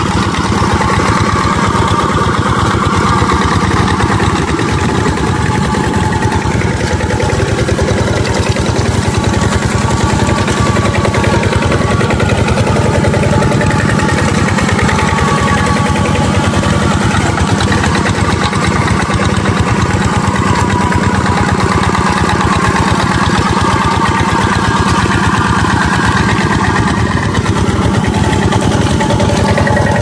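Kubota two-wheel walking tractor's engine running steadily under load as it drags cage wheels and a disc plough through wet paddy mud.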